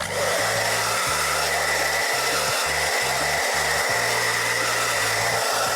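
Lange hand-held blow dryer switched on and running steadily: a loud even rush of air with a steady high whine.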